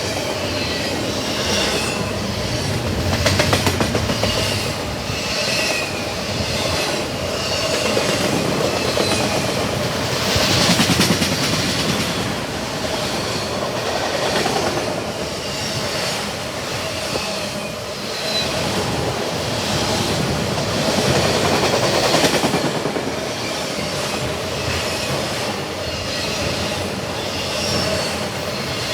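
Freight cars of a long CSX double-stack and autorack train rolling past, wheels clicking rhythmically over rail joints with some high-pitched wheel squeal.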